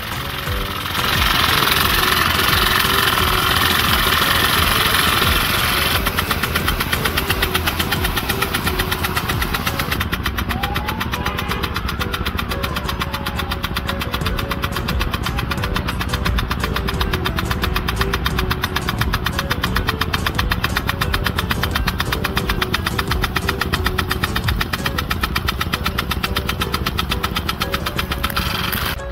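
A 1.5-inch rain gun sprinkler spraying a water jet, heard as a loud hiss for a few seconds near the start that then drops back. Under it a machine runs in a fast, even pulse with a steady low rumble throughout.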